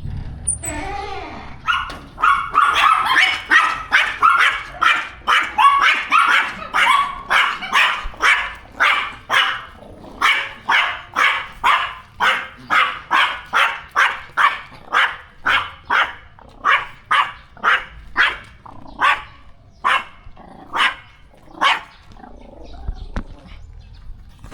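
A dog barking over and over, about two barks a second, loudest and most crowded in the first several seconds, then the barks space out and weaken near the end.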